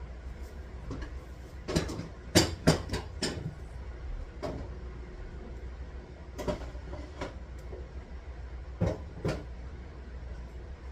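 Food containers and fridge shelves being handled: a run of sharp knocks and clicks, loudest in a quick cluster about two seconds in and again as two knocks near the end, over a steady low hum.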